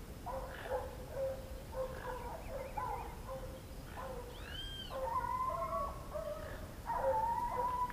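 Hunting dog whining in a run of high, wavering whines, the longer drawn-out ones coming about five seconds in and again near the end.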